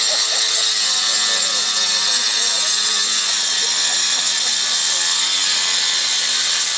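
A corded handheld power tool grinding and cutting into a stone block, running steadily without a break.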